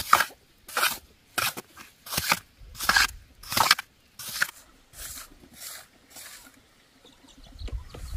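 Metal plastering trowel scraping over wet cement render, about ten short smoothing strokes less than a second apart, growing fainter after about four and a half seconds.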